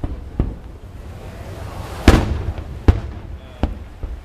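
Aerial firework shells bursting in a large display: a series of about six sharp booms, irregularly spaced, the loudest about two seconds in, over a steady low rumble.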